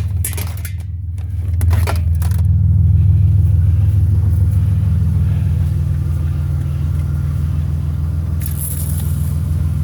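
Vehicle engine idling steadily, with a few knocks and clatters in the first couple of seconds.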